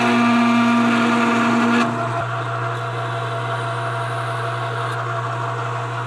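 Metal lathe running, drilling through a piece of cold-rolled steel: a steady motor hum, with a louder whine over it for about the first two seconds, after which it runs on more quietly.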